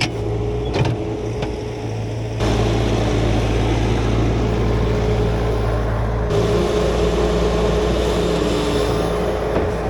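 Skid steer's diesel engine running under load, with a steady low drone; it grows louder about two seconds in as the throttle or hydraulic load increases, and eases slightly later on.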